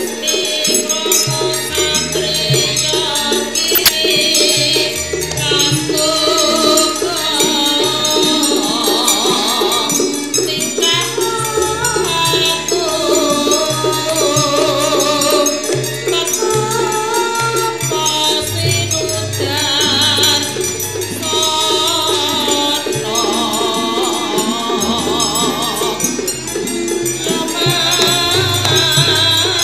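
Javanese gamelan music accompanying singing. It has a fast, steady beat, wavering sung melody lines, and deep held tones that change every few seconds.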